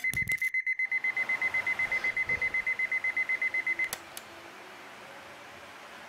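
Electronic alarm clock beeping: one high beep repeated rapidly, about eight times a second, that cuts off abruptly with a click about four seconds in. Faint room hiss follows.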